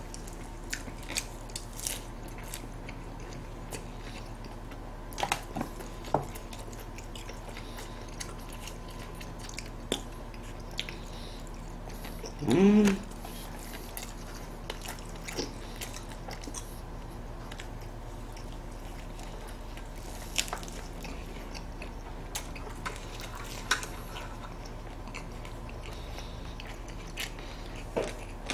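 Close-up chewing and biting of lettuce-wrapped pork, with scattered small clicks of chopsticks and plastic takeout containers, over a steady low hum. About halfway through comes one short, loud vocal sound from one of the eaters.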